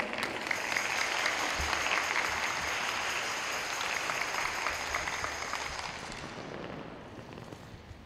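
Audience applauding, with dense overlapping claps that fade away over the last few seconds.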